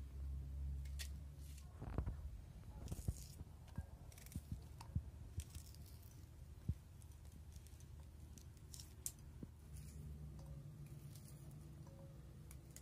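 Small knives peeling and cutting red onions by hand: scattered light clicks of the blades and short crackles of the dry skin tearing, busiest in the first two-thirds and thinning out near the end.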